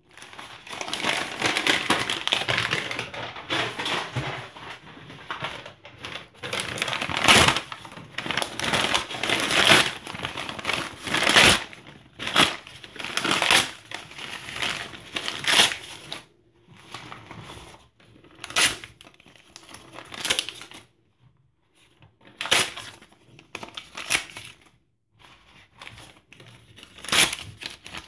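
Hands tearing and crumpling paper documents, receipts and newspaper. The crinkling is dense and continuous for about the first half, then breaks into separate short rips and crumples every second or two.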